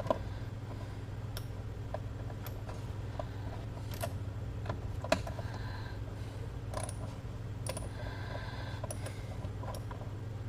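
Scattered light clicks and taps of a socket wrench working a screw loose, at irregular intervals, over a steady low hum.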